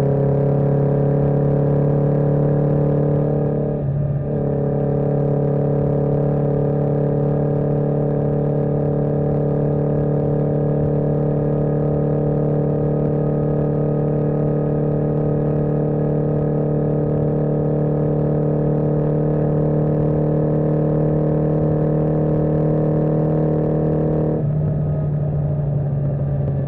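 1981 Yamaha XJ650 Maxim's air-cooled inline-four engine running at steady cruising revs on the road. The note breaks briefly about four seconds in and softens near the end as the throttle eases.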